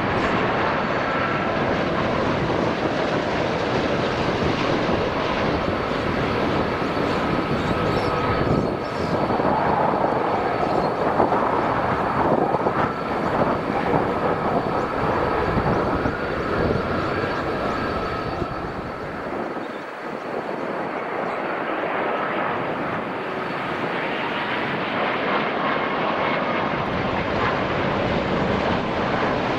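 Airbus A330-300 jet engines on final approach and landing: a steady jet roar with a high whine. About eight seconds in the noise swells for some ten seconds through touchdown and rollout, then drops away around twenty seconds in, after which a second airliner's approach whine takes over.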